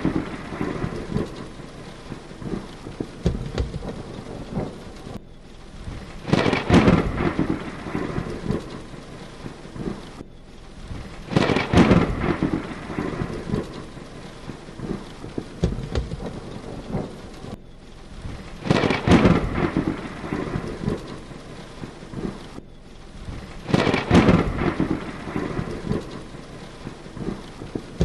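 Heavy rain falling steadily, with a loud thunder crack and rumble about every five to seven seconds, five in all. The sound cuts out for an instant four times between the claps, as if the recording is spliced.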